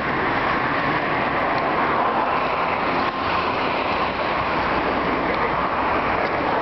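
Steady rush of wind buffeting the camera's microphone as the bicycle rides along.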